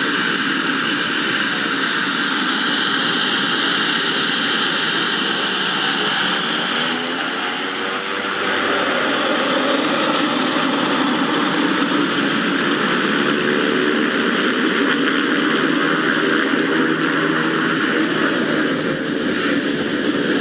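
Pilatus PC-12's single PT6A turboprop engine and propeller running steadily, with a high turbine whine that rises and falls about a third of the way in.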